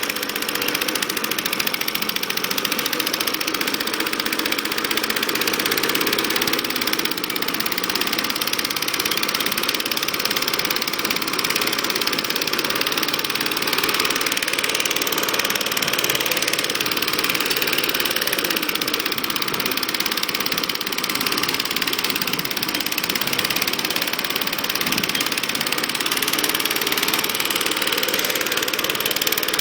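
Four-stroke petrol engine of a self-propelled Atco 17-inch roller lawnmower running steadily as the mower drives itself along the lawn.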